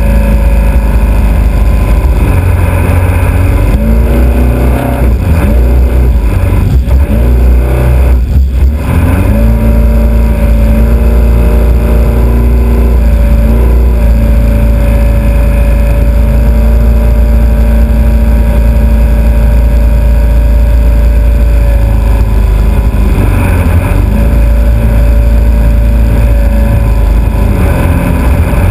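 Alfa Romeo Autodelta 2.5 V6 (Montreal-derived) of a vintage three-point racing hydroplane running at racing speed, loud, with a heavy low rumble of wind and water. The engine note wavers and dips several seconds in, briefly dropping near the end of that stretch, then holds steady, wavering again later.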